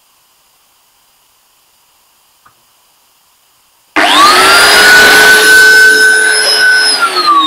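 Angle grinder driving a snail-shell centrifugal blower adapter, blowing sawdust: after four quiet seconds it is switched on, its whine climbs to full speed within a fraction of a second and holds steady over a loud rush of air. Near the end the whine starts to fall in pitch as it winds down.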